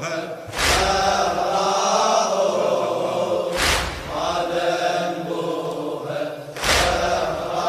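Arabic Shia mourning lament (latmiyya) chanted by male voices in long, held notes, with a heavy beat about every three seconds.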